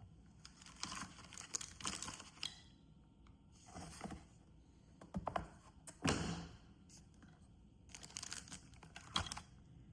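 Quiet rustling and crinkling of cardboard and paper packaging being handled and opened, with scattered small taps and knocks; the loudest rustle comes about six seconds in.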